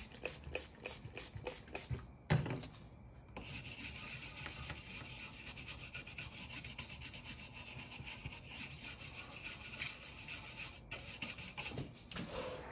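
Rapid, scratchy rubbing strokes, like scrubbing or scraping by hand, with a single loud knock a little over two seconds in.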